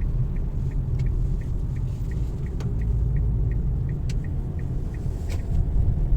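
Low rumble of a car on the move, heard from inside the cabin, with a light ticking about three times a second that stops near the end and a few sharper clicks.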